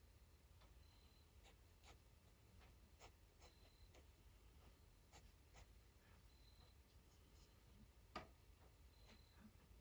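Faint scratching and tapping of a fine-liner pen on paper while drawing, in short irregular strokes, with one louder tap about eight seconds in.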